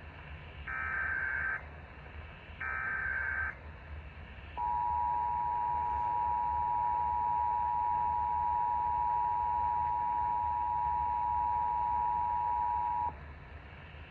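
Emergency Alert System activation: the last two short bursts of the SAME data header, about a second each, then the two-tone EAS attention signal (853 and 960 Hz together) held steady for about eight and a half seconds and cut off sharply.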